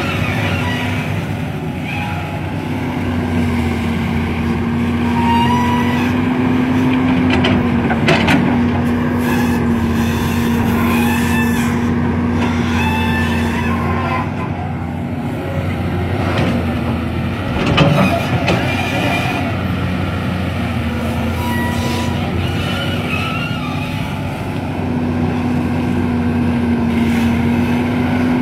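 Caterpillar hydraulic excavator's diesel engine running steadily, its hum fading and returning as the arm and bucket work under changing load. A couple of sharp knocks come through, the loudest about eighteen seconds in.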